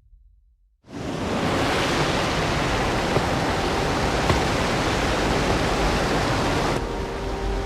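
After about a second of near silence, a steady, even rushing noise like static or running water comes in suddenly and carries on; near the end it turns a little duller and a few faint steady tones join it.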